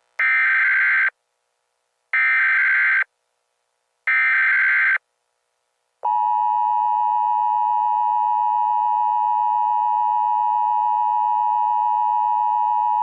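Emergency Alert System signal: three short data bursts (the SAME header) about two seconds apart, then the steady two-tone attention signal starting about six seconds in.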